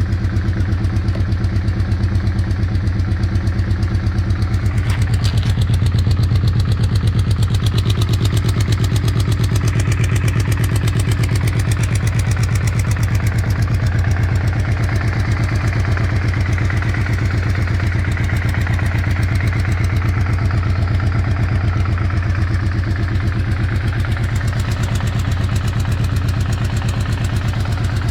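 Engine idling steadily with an even, rapid pulse: a weird engine sound, by its owner's account.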